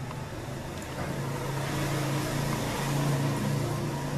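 Engine of a passing motor vehicle, its sound swelling to a peak about three seconds in and then easing off.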